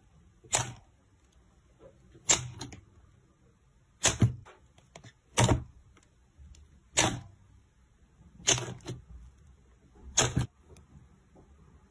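Slime being handled, with a short sharp squish or pop about every one and a half seconds, seven times.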